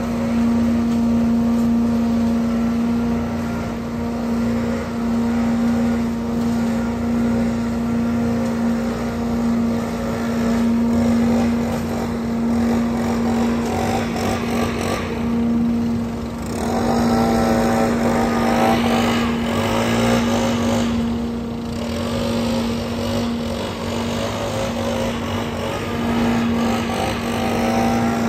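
Leaf vacuum's gas engine running steadily with a constant low hum. A bit past halfway a gas backpack leaf blower runs close by on top of it, its pitch rising and falling as the throttle changes.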